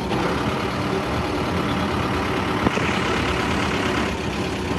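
A bus's engine running and its cabin rattling and road noise as it drives, heard from inside the bus, with one sharp click about two and a half seconds in.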